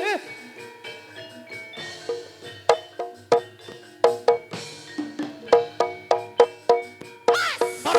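Gamelan-style dance accompaniment: pitched mallet-struck notes ringing out two or three a second, with drum strokes. Near the end a loud, wavering, sliding melody comes in over them.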